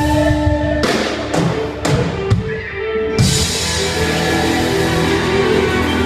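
Live rock band with several electric guitars and a drum kit: a held chord breaks into four sharp stop hits, then the full band comes back in about three seconds in.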